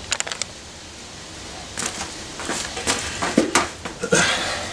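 Clicks, knocks and a short scraping rush near the end as a motorcycle tire and wheel are stood up and plastic rim savers are fitted on the rim for levering the tire off.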